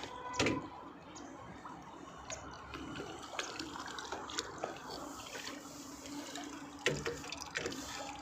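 A hooked carp splashing at the water's surface as it is played and landed. Irregular splashes and drips, with a louder splash about half a second in and another near seven seconds.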